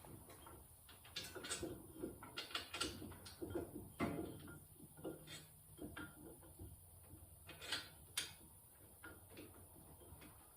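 Faint, scattered clicks and knocks of tools and metal brake parts being handled during a front brake pad job, with a few sharper knocks about four and eight seconds in.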